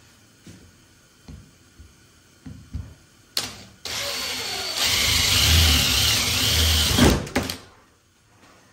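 Cordless drill running for about three and a half seconds as its bit cuts a starter hole through the sheet-metal trunk lid, then stopping abruptly. A few light handling clicks come before it.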